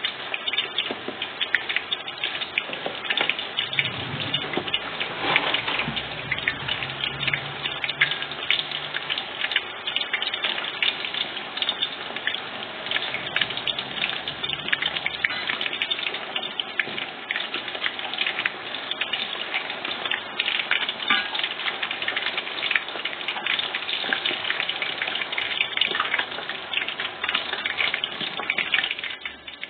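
Keftedes (Greek meatballs) deep-frying in hot oil in a stainless steel pot: a steady sizzle thick with small crackles.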